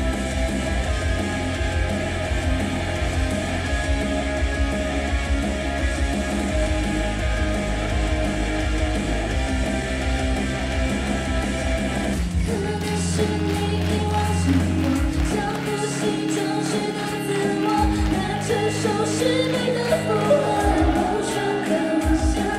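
Loud pop-rock song with guitar and a steady heavy bass beat. About halfway through, the bass and beat drop out abruptly and singing carries on over a lighter accompaniment.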